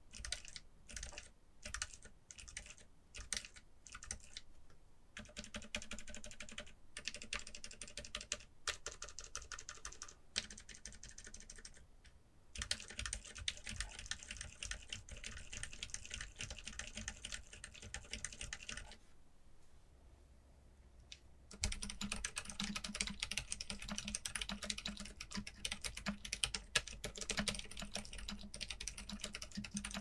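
Keyboard fitted with Outemu Silent Peach silent linear switches being typed on. It starts with separate key presses about twice a second, turns into fast rolling presses, and after a short lull about two-thirds through becomes louder continuous typing across the full keyboard.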